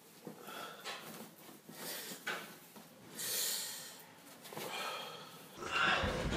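A person's audible breathing, with clothes rustling as a shirt is pulled on, then low thuds near the end as he lies down on a bed.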